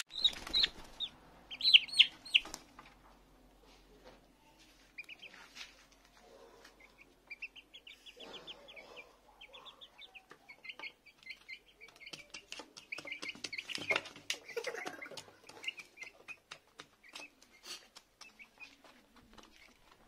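Young chickens peeping in quick runs of short, high notes, with louder calls in the first two seconds. Their beaks peck with sharp clicks at seed in a plastic feeder dish.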